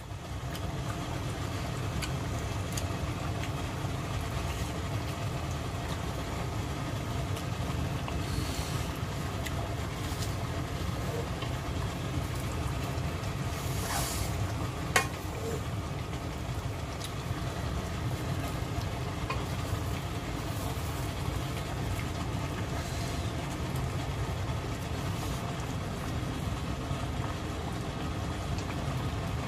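Thick, spicy chicken stew bubbling as it simmers in a pan, over a steady low rumble, with a wooden spatula stirring now and then. One sharp knock comes about fifteen seconds in.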